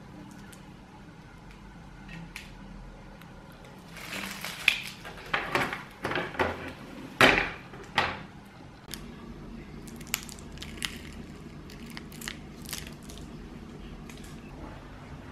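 Small plastic bags of dry water-gel beads being handled: a run of crinkling and rustling plastic from about four to nine seconds in, then a few light clicks as things are set down on the tabletop.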